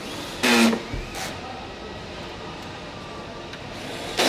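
Assembly-line workshop noise with a short burst of a power tool about half a second in, a brief weaker one soon after, and another short burst at the end.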